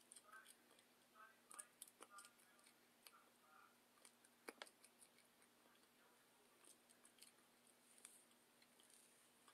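Near silence: room tone with faint scattered clicks and taps of a smartphone being handled, the sharpest about halfway through.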